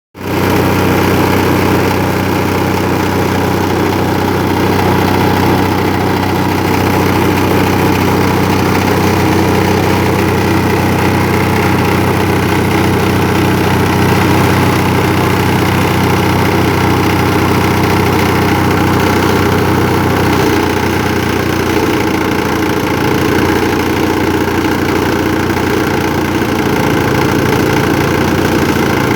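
Electric-motor grass chopper running steadily with a continuous hum and whir; the low part of the hum changes about twenty seconds in.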